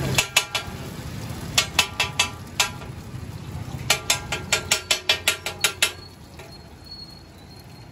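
Metal spatula chopping a tikki and onions on a flat steel tawa: runs of quick ringing metallic taps, about five a second, the last and longest run stopping about six seconds in. Egg frying in oil on the griddle underneath.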